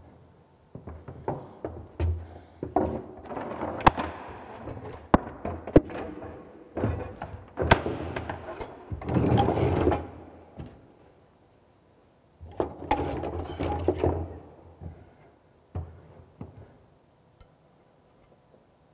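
Clinks, knocks and rattling of hand tools and fittings as a ceramic wash basin is fitted to the wall, in two busy stretches with a short lull between them.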